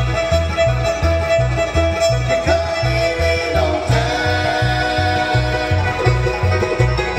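A bluegrass band playing an instrumental passage: the fiddle holds long melody notes over banjo and guitar picking. The bass alternates between two notes on the beat, and the melody moves to new notes about four seconds in.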